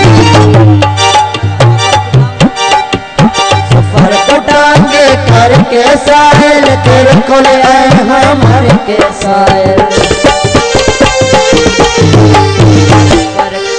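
Instrumental break in a Punjabi folk song. Fast hand-drum playing, the bass drum's pitch sliding up and down, runs under held melody notes from an accompanying instrument, with no voice.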